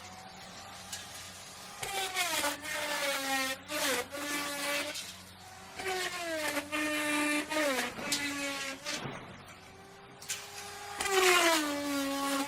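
Wood router cutting into wood: the motor's high whine drops in pitch each time the bit takes load, then holds. This happens three times, about two seconds in, six seconds in and near the end, with the router running more quietly between cuts.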